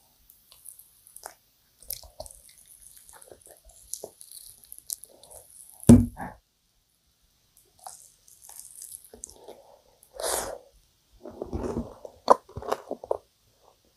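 Close-miked eating of sticky, chewy yakgwa (Korean honey-fried cookie) with ice cream: soft wet chewing and smacking, a single sharp thump about six seconds in, and crackly sticky handling of the glazed yakgwa pieces near the end.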